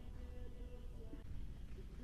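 Quiet pause: faint steady low hum of background noise, with no distinct sound event.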